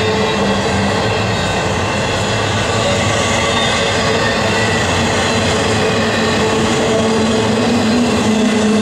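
Double-stack container freight train rolling past close by: steady loud rumble of steel wheels on rail, with a few steady whining tones from the wheels above it.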